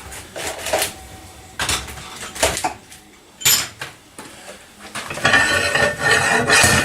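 Slide hammer's sliding weight striking its stop, metal-on-metal clanks, as it tries to pull a tight plug from an outboard lower-unit housing. Several separate strikes, then a quicker run of clanking with a metallic ring from about five seconds in; the plug stays stuck fast.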